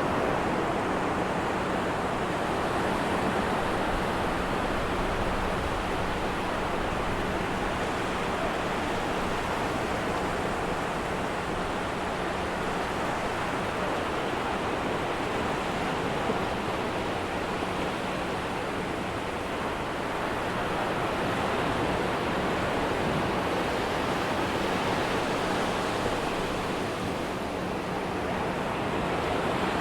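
Atlantic ocean waves breaking and washing onto a sandy beach: a steady wash of surf with gentle rises and falls in level.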